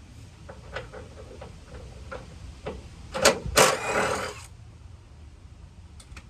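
Light clicks and knocks, then a loud hit about three seconds in followed by about a second of clattering and scraping, as of parts being handled and set down.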